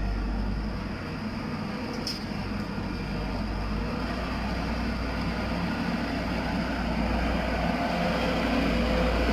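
An engine running steadily with a deep hum that grows slightly louder towards the end, and one brief click about two seconds in.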